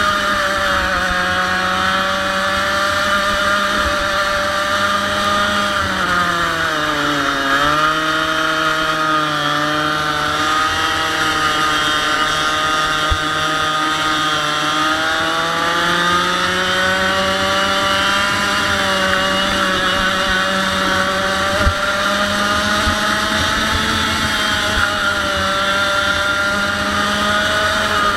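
100cc two-stroke kart engine running hard at high revs, its pitch dropping sharply about six seconds in as it slows for a corner and then climbing back, with a gentler dip around the middle.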